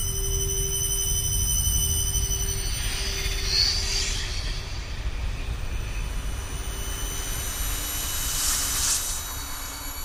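Low, shimmering tension ambience: a steady low drone under thin, sustained high tones. Two airy swells of hiss rise through it, one about four seconds in and a shorter one near the end.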